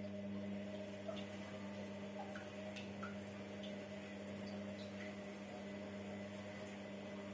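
Washing machine running: a steady electric motor hum, with scattered faint clicks and ticks.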